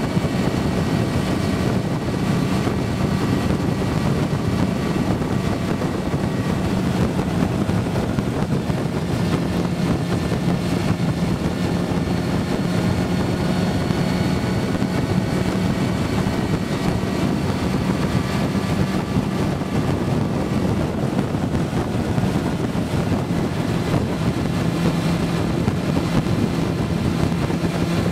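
Motorcycle engine running at a steady road speed under wind rush, heard from on board the bike; the engine note drifts slightly up and down with the throttle.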